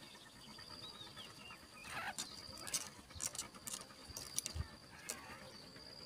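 Faint, short high squeaks and ticks from naked yellow-vented bulbul nestlings stirring in the nest, bunched between about two and five seconds in and including one downward-sliding squeal near the start of the cluster. A steady high insect trill comes and goes behind them.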